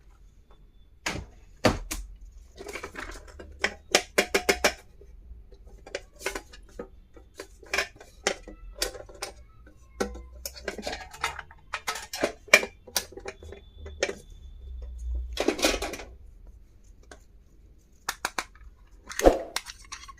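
Small stationery and toy pieces handled during unboxing: a string of sharp clicks, taps and light rattles, with a longer rustle about fifteen seconds in.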